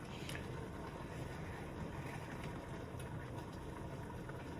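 Steady low rushing background noise with a few faint light clicks.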